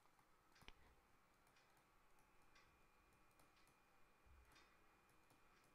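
Near silence: room tone with a few faint, brief clicks.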